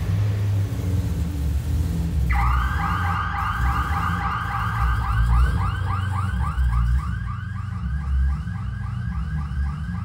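BMW E90 M3's S65 V8 engine running at its fast, loud cold-start idle. About two seconds in, a parked car's alarm starts: a warbling tone repeating about three times a second, set off by the noise of the engine.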